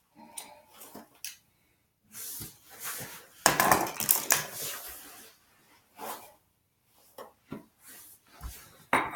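Rustling, clicks and light knocks of small pocket items being handled, with a louder stretch of rustling about two to five seconds in.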